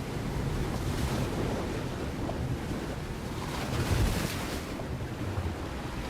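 A steady rushing noise with a heavy low rumble, swelling louder about four seconds in.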